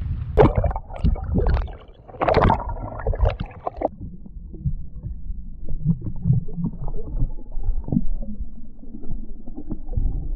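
Irregular knocks, rustling and low rumbling of handling noise on a small boat, busier and louder in the first four seconds, then quieter with scattered knocks.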